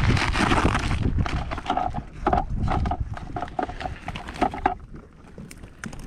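Close handling of ice-fishing gear as a flasher's transducer and cord are pulled from a nylon carry bag: rustling in the first second, then a run of light knocks, clicks and short squeaks of fabric and plastic.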